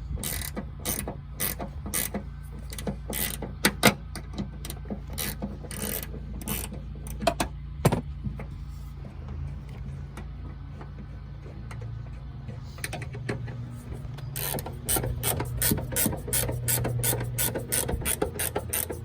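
Socket ratchet clicking in quick runs as 12 mm door-hinge bolts are backed out, sparser around the middle and a fast steady run of clicks near the end.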